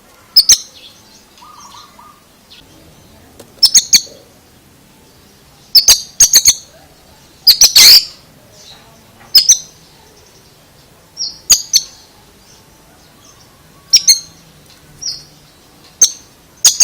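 Oriental magpie-robin (kacer) giving short, sharp, high calls in quick groups of two or three, repeated about every two seconds, with the loudest group about eight seconds in.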